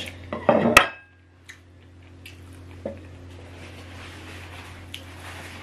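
A ceramic plate clinks down onto a table once, sharply, under a brief bit of voice in the first second. Then faint rustling of a paper tissue and a few light ticks over a steady low hum.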